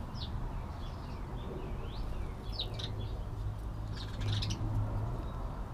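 Two birds chirping repeatedly while feeding: short calls that sweep up and down in pitch, with a few sharp clicks among them, over a steady low hum.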